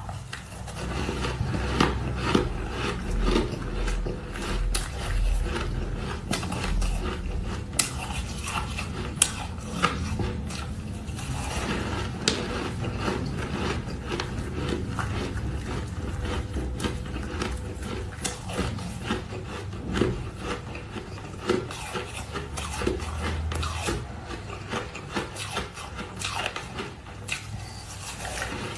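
Ice crunching and scraping close up: a steady run of gritty crackles and rasps, with sharper cracks now and then.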